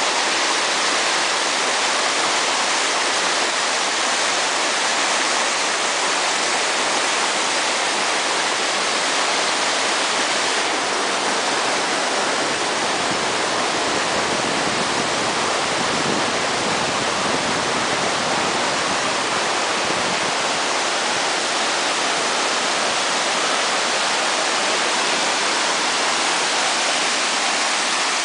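Cola de Caballo waterfall: water falling and splashing in a loud, steady rush.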